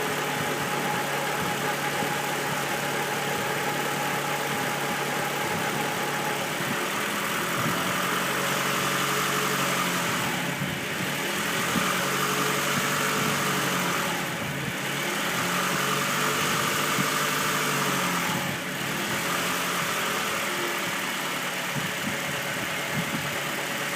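2013 Scion tC's 2.5-litre four-cylinder engine idling steadily in neutral with the clutch pedal pressed, its tone shifting briefly about three times in the middle. The owner takes the noise for a fault in the transmission or clutch.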